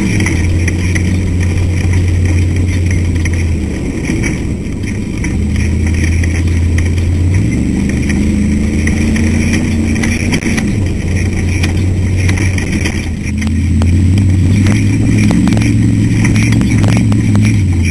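Ultra4 race car's engine running hard, heard from inside the car while it drives fast over rough desert. Its note drops briefly about four seconds in and again about thirteen seconds in. Knocks and rattles come through in the last few seconds.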